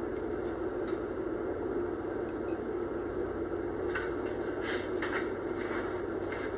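Steady low hum of kitchen room noise, with a few faint soft rustles and taps about four to five seconds in as pita bread is pulled apart by hand.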